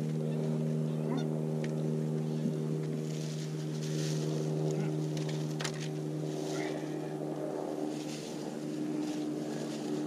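A motor running with a steady low hum throughout, with a few short chirps and clicks over it.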